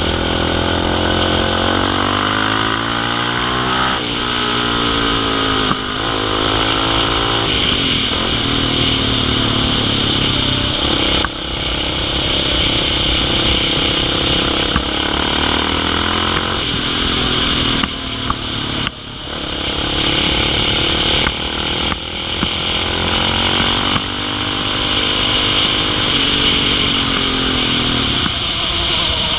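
Engine of a quad bike (ATV) under way, its note rising and falling as the throttle is worked, with short drops in revs about eleven seconds in and again around nineteen seconds.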